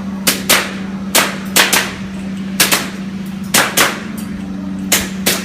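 Airsoft pistol firing shots in quick pairs, roughly one pair a second, over a steady low hum.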